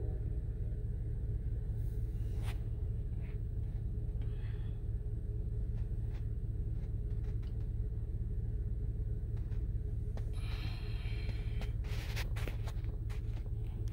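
Steady low rumble heard inside a car cabin as a commuter train's trailing cab car passes the grade crossing and pulls away. A few sharp clicks come through, with a short hiss about ten seconds in.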